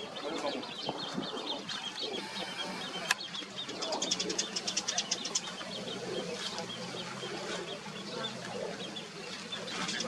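Mallard ducklings peeping, a steady scatter of small high peeps. A sharp click about three seconds in, and a rapid run of ticks a second later.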